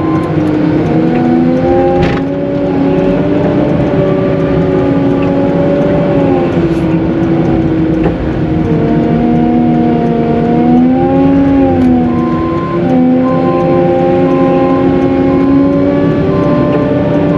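Caterpillar 906M compact wheel loader running under load while plowing snow. Its engine and drive whine in a pitch that rises and falls several times as it works.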